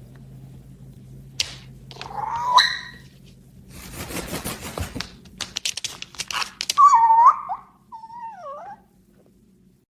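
Pet animal cries: a short rising cry about two seconds in, then two wavering cries near the end, with scuffling in between over a steady low hum.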